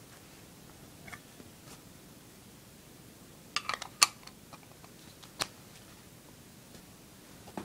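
Plastic lens cap and a 0.18x fisheye adapter lens handled and pressed together: a few sharp clicks and taps, with a quick cluster about three and a half to four seconds in and a single click about five and a half seconds in.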